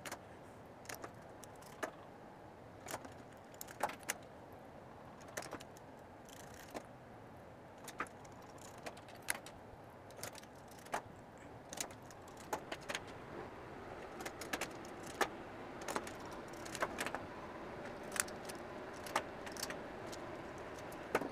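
A screwdriver, small metal screws and plastic switch and socket modules clicking and tapping as the modules are fitted and screwed onto a mounting board, with irregular sharp clicks about once a second.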